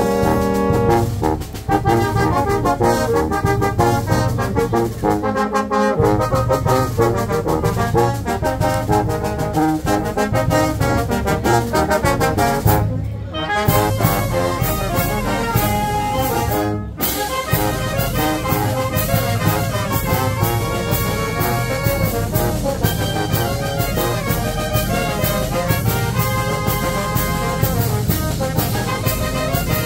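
A brass-and-reed wind band of saxophones, trumpets, trombones and sousaphone plays over bass drum and snare with a steady beat, with two short breaks near the middle.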